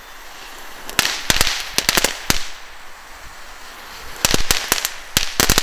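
Small category 1 crackling fireworks going off in two bursts of quick, sharp pops, the first about a second in and the second from about four seconds in.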